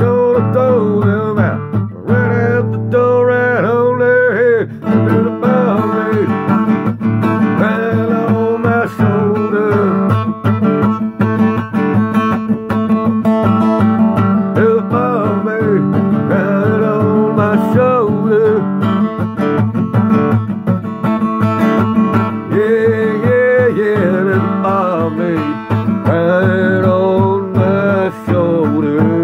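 A man singing with a strummed acoustic guitar, the voice rising and falling in drawn-out lines over steady chords.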